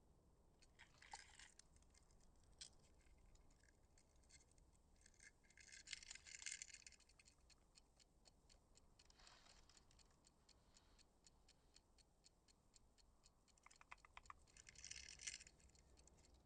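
Faint rustling and small ticking clicks in a hushed room, with short hissy rustles about a second in, around six seconds in, and again near the end.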